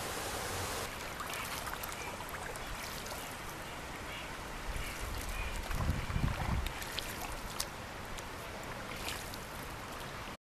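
Steady rush of flowing river water around a canoe, with a few gusts of wind buffeting the microphone in the middle; it cuts off abruptly near the end.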